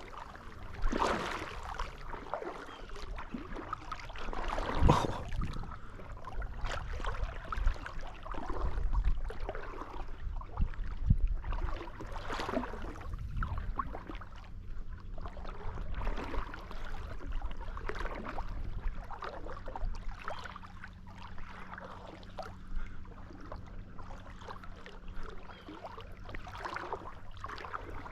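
Irregular splashing and swishing of water, like someone wading through shallow marsh water, with the strongest splashes about 1, 5 and 12 seconds in, over a low steady hum.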